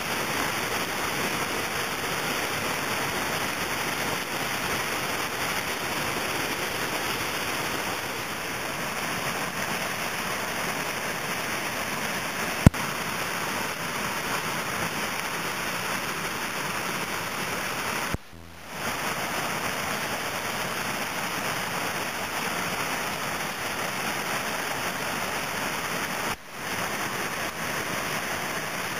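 Whitewater pouring over a river ledge: a steady, loud rush of falling water. A sharp click about 13 seconds in, and two brief dropouts in the sound, one midway and one near the end.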